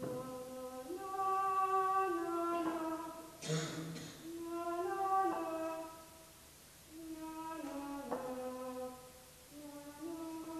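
A woman singing a slow melody unaccompanied, in long held notes that step up and down in pitch, in several phrases with short breaks between them.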